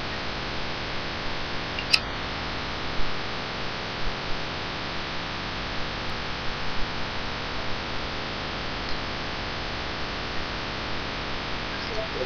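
Steady hiss of webcam microphone noise, with a sharp click about two seconds in.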